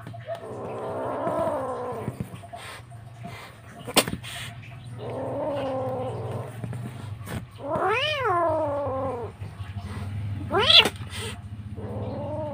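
A young black-and-white feral kitten meowing repeatedly: about five loud cries, each rising and falling in pitch, the middle one the longest. There is a sharp click about four seconds in, over a steady low hum.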